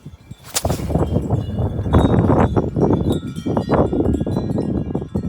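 Strong wind gusts buffeting the microphone in a loud rumble that builds about half a second in, with wind chimes ringing throughout.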